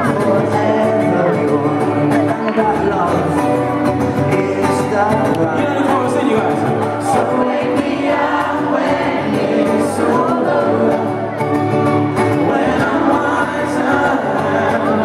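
Live amplified acoustic pop performance: strummed acoustic guitar and ukulele under sung lead vocals, with no break.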